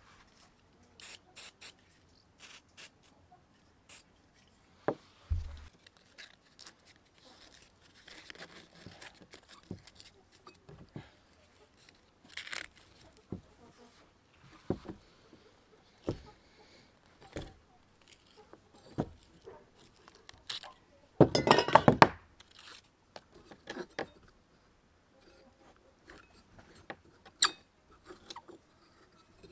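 Steel parts of a rusty hand drill being worked apart by hand and with pliers: scattered clicks, clinks and scrapes of metal on metal and on the wooden table. About two-thirds of the way through comes a loud rattling clatter lasting about a second.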